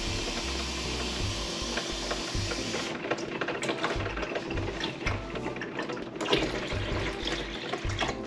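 Drip coffee maker brewing: a steady hiss that cuts off about three seconds in, followed by irregular sputtering clicks.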